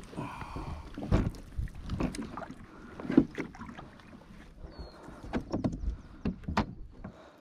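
A kayak being paddled: paddle strokes in the water with irregular knocks and clunks against the boat.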